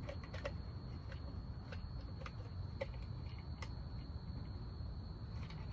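Faint scattered clicks and taps of hands working on a car's front-end parts, over a steady high insect trill and a low background rumble.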